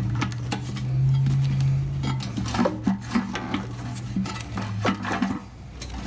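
Light metal clinks and knocks as a chrome Harley-Davidson Shovelhead oil tank is worked loose in the frame, bumping against fittings, hoses and cables. A low steady hum runs underneath.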